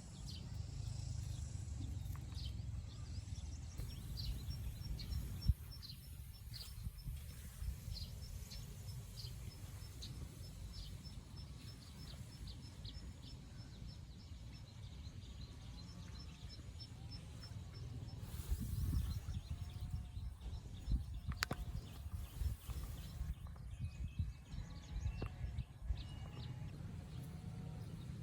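Outdoor rural ambience: a steady low rumble with a rapid, evenly ticking high trill lasting several seconds, then a few faint chirps and clicks.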